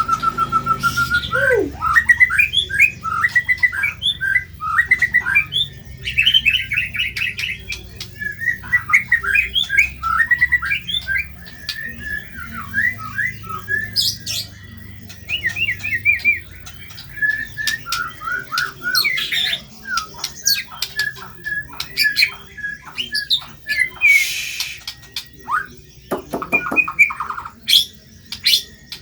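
White-rumped shama (murai batu) singing fast and without a break: a varied run of quick chirps and trills broken by short harsh squawks, the rough material that masteran recordings are made to teach.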